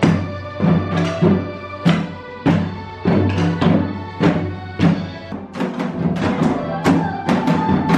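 Janggu, Korean hourglass drums, struck with sticks in a lively rhythm of about two beats a second, with steady tones sounding underneath.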